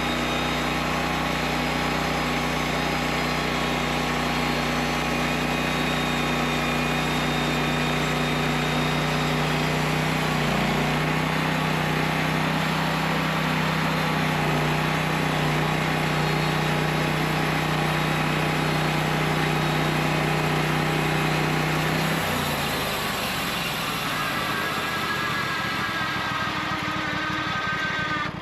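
Custom-made sawmill's engine running steadily under load. About 22 seconds in its low note drops away, leaving a fainter, wavering whine.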